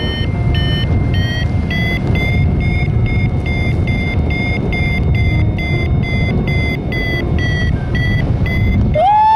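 Paragliding variometer beeping rapidly, about three short beeps a second at a steady pitch: the sound a vario makes while the glider is climbing in lift. Wind rushes on the microphone underneath, and near the end a louder tone slides up and back down.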